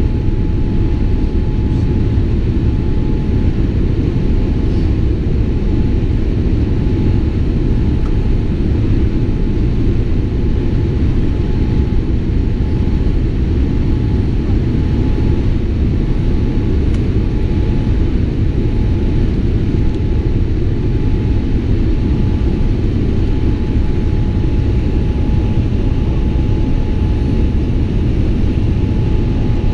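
Steady cabin noise inside a Boeing 787 airliner in flight on descent: a deep, even rumble of engines and airflow, with a thin steady whine over it.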